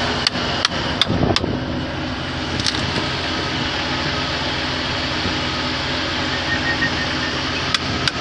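A vehicle engine idling steadily. Over it comes a quick run of sharp taps, about three a second, through the first second and a half, with another run near the end.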